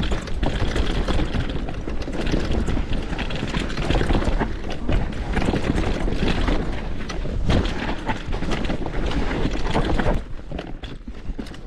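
Mountain bike ridden down a rough trail of wet rocks and roots: a continuous rattle and clatter of tyres, chain and frame over the rough ground, with many sharp knocks. It eases off about ten seconds in.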